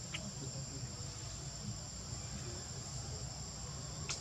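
Steady high-pitched drone of insects in the undergrowth, with a low rumble beneath it. Two brief high sounds cut through: a short squeak just after the start and a sharp click-like sound near the end.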